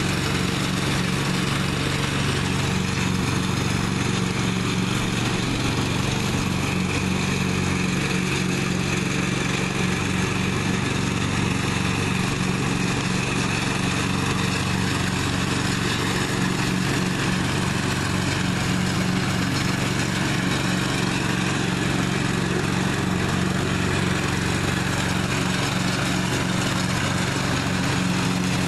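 Engine of a 1998 Husqvarna riding lawn mower running steadily at an even pitch during mowing.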